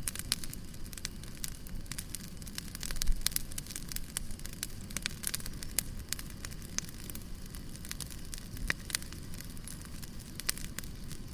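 Wood bonfire burning, crackling with many irregular sharp pops over a low steady rush of flame; one louder pop about three seconds in.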